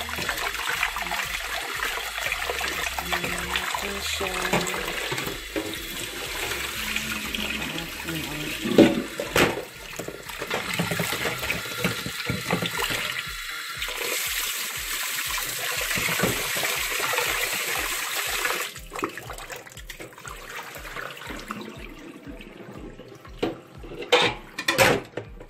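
Kitchen tap running into a steel pot in a sink while raw chicken pieces are rinsed and rubbed by hand, water splashing steadily. A few sharp knocks stand out, the loudest about nine seconds in and near the end.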